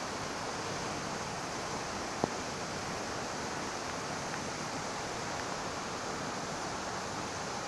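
Steady rushing hiss of moving pond water, with one sharp click about two seconds in.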